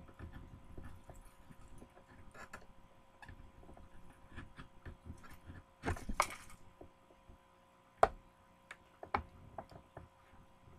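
Hot Wheels blister pack of plastic and card being handled and torn open: scattered crinkling and clicking, a louder crackling tear about six seconds in, and sharp snaps near eight and nine seconds.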